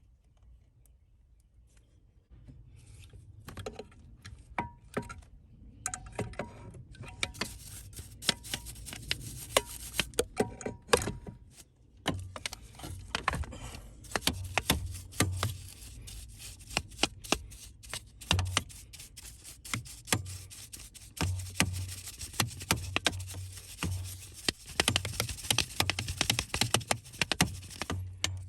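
Hands working on car parts: irregular clicks, knocks and scraping of plastic and metal pieces being handled, starting about two seconds in and going on busily throughout.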